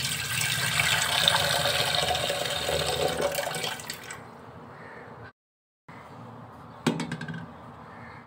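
Tap water running into an aluminium pot in a steel sink, filling it, for about four seconds before it stops. A brief knock comes near the end.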